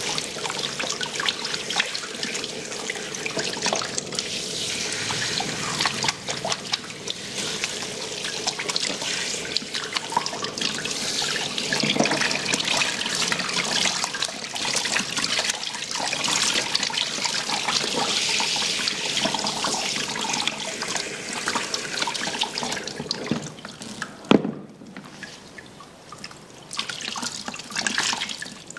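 Handheld shower head spraying water onto a client's hair over a shampoo basin while the hair is rinsed. About 24 seconds in there is a sharp click and the spray stops, leaving dripping water.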